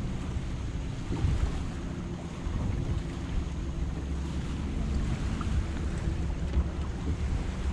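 Wind buffeting the microphone with water lapping against a boat hull, over a faint steady hum.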